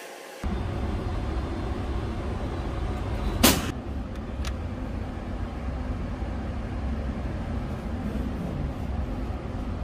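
Steady low rumble of an indoor shooting range's background, starting abruptly about half a second in. One loud, sharp bang comes about three and a half seconds in, and a lighter click about a second later.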